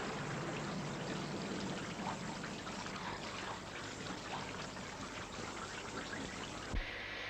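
Steady hiss of falling water with many small splashes and drips. About 6.8 seconds in it cuts off with a short low thump, giving way to a quieter steady background with a faint high whine.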